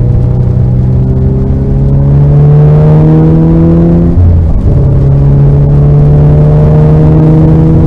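Onboard sound of a car engine accelerating hard. The revs climb steadily, drop sharply in a quick upshift about four seconds in, then climb again.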